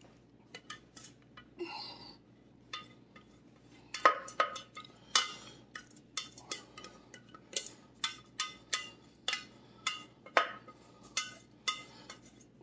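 Metal ladle scraping and clinking against the inside of a stainless steel pot as the last of the gravy is scraped out, light ringing clinks coming about once or twice a second from about four seconds in.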